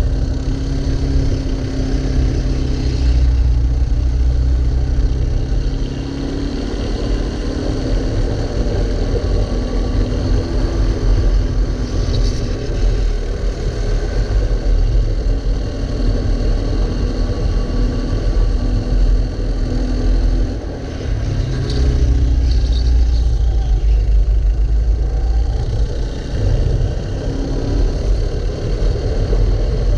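Go-kart engine running hard under racing load, heard from on board the kart, its note rising and falling with the revs through the corners; the sound drops briefly a few times.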